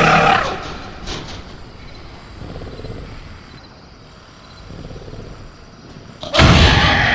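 Sound-effect velociraptor in a cage, agitated. A pitched vocal sound fades out at the start. About six seconds in comes a sudden loud bang, followed by a shrieking call that falls in pitch.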